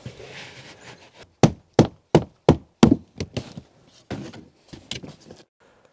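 Wooden knocks as the curved ribs are driven and tapped into place inside a birch bark canoe: about six hard knocks at roughly three a second, then several lighter, uneven taps.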